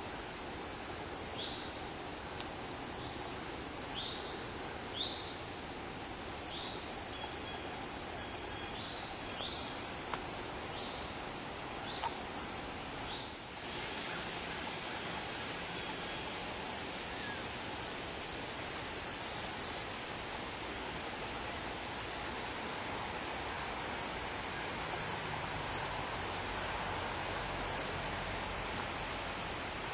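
Steady, high-pitched chorus of insects trilling without a break. For the first dozen seconds, short high chirps repeat roughly once a second over it.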